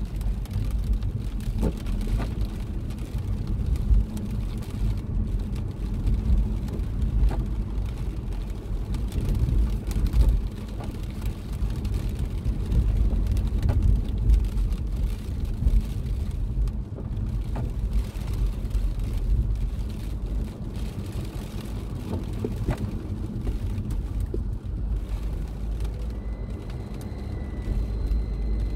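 Steady low rumble of a car driving on wet roads, heard from inside the cabin, with scattered taps of rain on the windscreen. A faint steady high tone comes in near the end.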